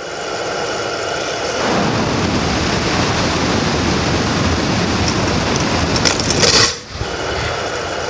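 A flaming gel stream shot from a remote-controlled well-ignition launcher: a loud, steady rush of fire that swells about a second and a half in, grows loudest near the end, then stops suddenly and leaves a quieter steady noise.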